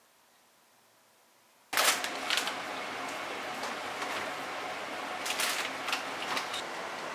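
Near silence that cuts suddenly, about two seconds in, to steady kitchen background hiss with scattered light clicks and clatter. The loudest click comes right at the cut.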